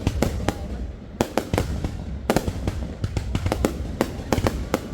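Aerial fireworks bursting: a rapid, irregular run of sharp cracks and bangs, several a second, over a steady low rumble.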